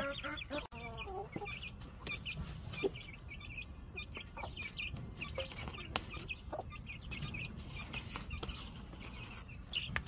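Mother hen clucking low to her two-month-old chicks, while the chicks peep repeatedly in short, high, falling notes; a few sharp clicks are scattered through.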